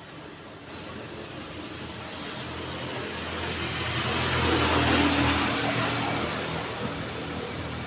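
A car passing by on a road over steady traffic noise, building up to its loudest about five seconds in and then fading.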